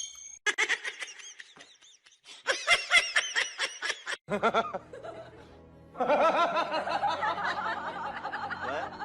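Laughter in quick bursts of rising and falling giggles, with music underneath.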